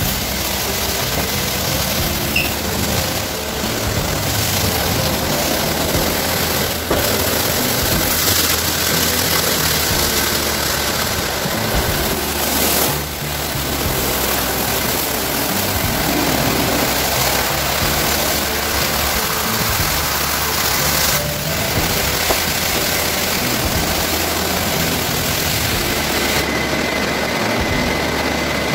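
Automatic rollover car-wash gantry running over a car: rotating brushes and water spray make a steady rushing noise against the car's body, with the machine's motors running. Background music plays along with it.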